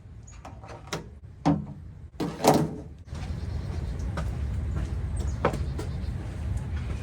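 A few knocks and clatters of cooking gear being handled, the loudest about two and a half seconds in, then a steady low rumble from about three seconds in.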